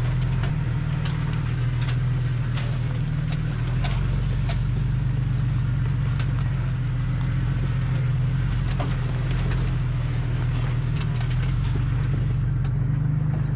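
A Jeep's engine running at a steady low drone under load as it tows a loaded trailer slowly over rocky trail, with scattered short clicks and rattles.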